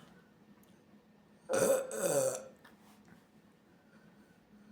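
A woman's loud burp about a second and a half in, lasting nearly a second, its pitch falling as it goes.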